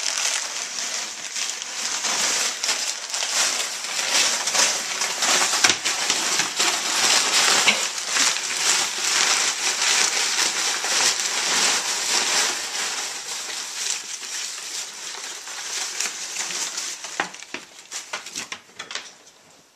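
Brown packing paper crackling and crumpling without a break as a pig noses into it and drags it about. The rustling thins out and dies away over the last two or three seconds.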